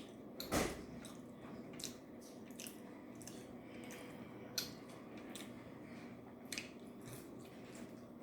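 A person chewing breaded, fried steak fingers close to the microphone, with scattered short wet mouth clicks and bites, the loudest about half a second in.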